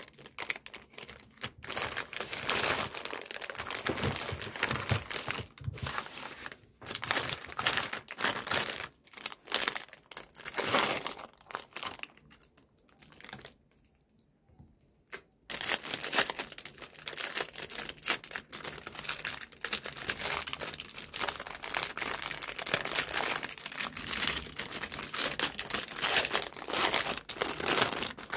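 Plastic ice cream bar wrappers crinkling and crackling as they are torn open and peeled off chocolate-coated ice cream bars, with a short pause about halfway through.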